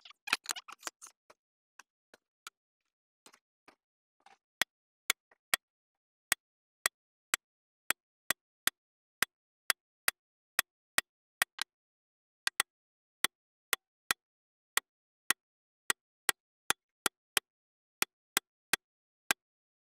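Center punch striking a metal panel to mark hole centres: a run of sharp single clicks, roughly two a second. The clicks begin about four and a half seconds in, after some faint handling noise.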